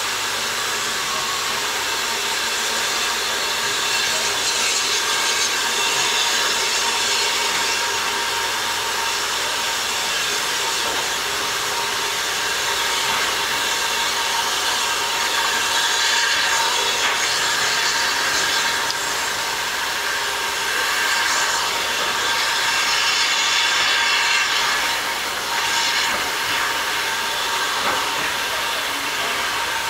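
BR Standard Class 4 4-6-0 steam locomotive 75078 moving off slowly with its coaches, steam hissing steadily from around its cylinders and from under the carriages, with small swells in the hiss.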